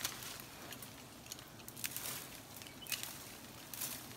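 Faint, scattered rustles and light snaps of branches, vines and leaves as someone climbs through thorny brush: a few short, sharp rustles over a quiet hiss.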